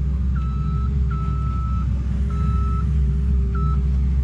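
A heavy engine runs with a steady low rumble and hum. A high electronic beep sounds four times over it, at the same pitch each time but of uneven lengths.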